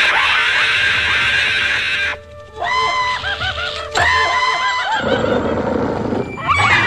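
Cartoon soundtrack of music and sound effects with high, squeaky cartoon-squirrel voices chattering and giggling, in two warbling bursts about a second apart in the middle.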